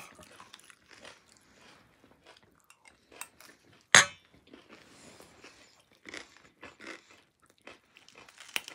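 Close-up crunching and chewing of chatpat, a spicy puffed-rice snack mix, in a series of short crisp crunches. A sharp clink of a spoon against the steel bowl stands out about four seconds in.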